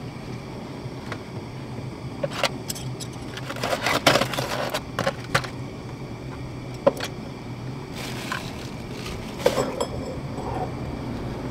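Hands handling food at a table: crinkling aluminium foil and rustling lettuce, with light clicks of utensils against a steel plate. These come in scattered short bursts, busiest about four to five seconds in, over a steady low background hum.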